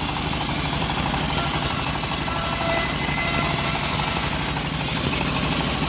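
Homemade engine-driven bandsaw mill running steadily, its engine hum under an even hiss.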